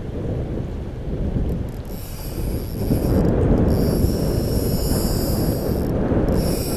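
Fly reel drag buzzing in high-pitched spells of one to two seconds as a hooked fish pulls line off against the bent rod. Underneath, there is a constant rumble of wind on the microphone and rushing river water.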